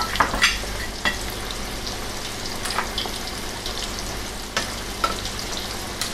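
Flour-coated chicken pieces deep-frying in hot soybean oil in a steel wok: a steady sizzle with a few sharp crackles.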